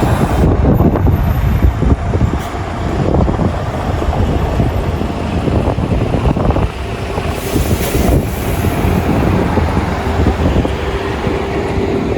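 Wind buffeting the microphone in gusts, a heavy rumble over city traffic noise. A brief hiss passes about two-thirds of the way through, and a steady hum comes in near the end.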